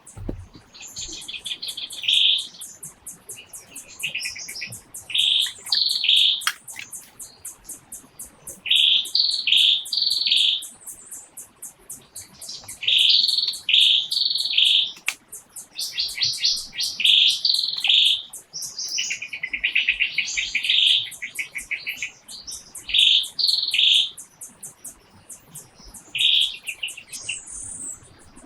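Birds calling: short loud chirps, often in quick pairs, repeated every second or two over a fast, high-pitched ticking trill.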